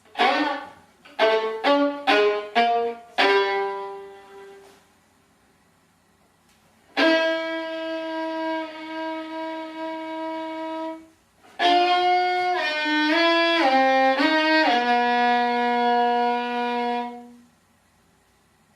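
Violin playing: a quick run of five or six short fading notes, then after a pause one long held note, then a phrase of notes stepping downward and ending on a long low held note.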